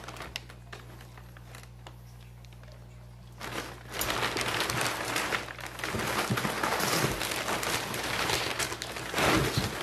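Brown kraft packing paper crinkling and rustling as it is handled and pulled out of a shipping box. It is quiet with a few small rustles at first, then loud and continuous from about three and a half seconds in.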